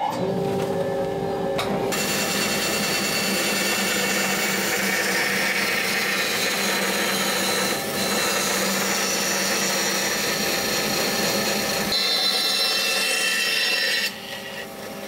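Tilting bandsaw running and cutting a bevel through a wooden boat knee blank: the blade bites into the wood about two seconds in and the cutting noise holds steady, then drops sharply near the end as the cut finishes.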